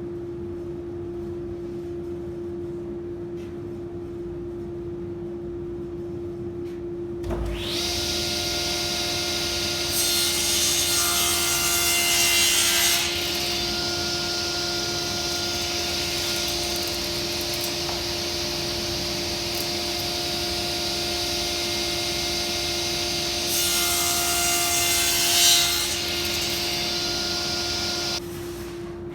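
Table saw started about seven seconds in and running with a steady whine, its blade cutting through wood in two louder stretches while making angled crosscuts. The sound cuts off abruptly near the end, over a steady low hum that runs throughout.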